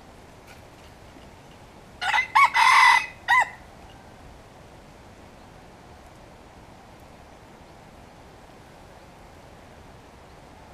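A rooster crowing once, about two seconds in: a short crow of four quick joined notes lasting about a second and a half, over a faint steady background hiss.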